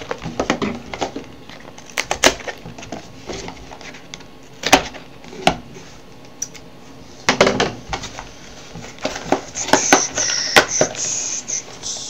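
Small cardboard trading-card boxes being opened and handled on a tabletop: irregular knocks and taps as boxes are picked up and set down, with a brief rustle of packaging about ten seconds in.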